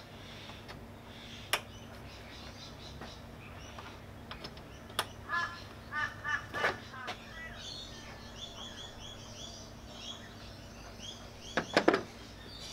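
Sharp plastic clicks from the clips along the top of a plastic radiator grille as they are handled and pressed in by hand, loudest in a quick cluster near the end. Birds call and chirp throughout, with a short run of repeated calls in the middle and high chirping after that.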